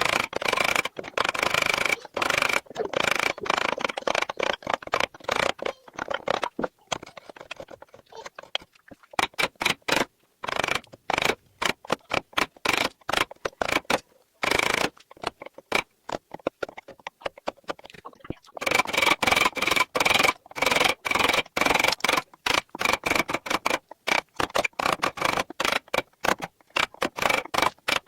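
Rapid, irregular scraping strokes of a hand tool working the surface of a bird statue, in runs broken by two short pauses.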